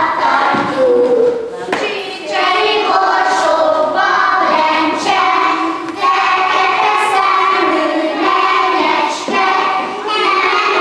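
A group of young children singing a song together in unison, with women's voices singing along.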